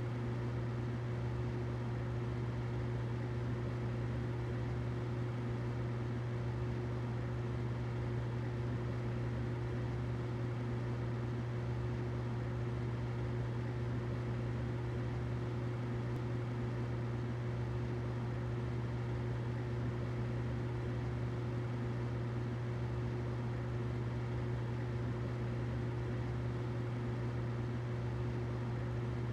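Humidifier running steadily: a constant low hum with a fainter steady tone above it and a soft even hiss.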